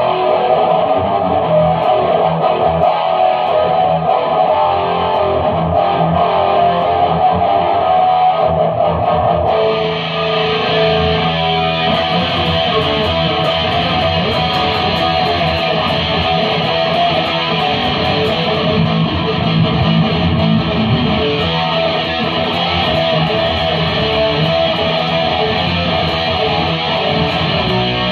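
Electric guitar played through effects, loud and continuous; the tone turns brighter about ten seconds in.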